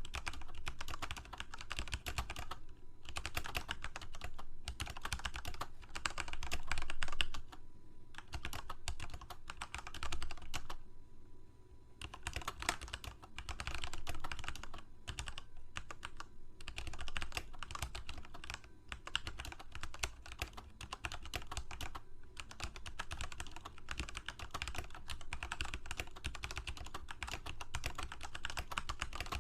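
Typing on a computer keyboard: rapid runs of key clicks in bursts of a few seconds, broken by short pauses.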